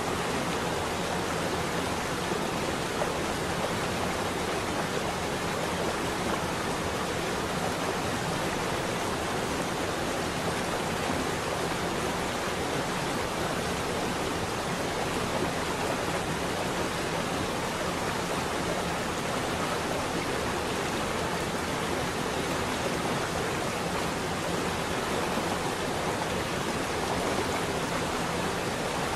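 Steady, even rushing noise, unchanging throughout: the masking sound bed of a subliminal audio track.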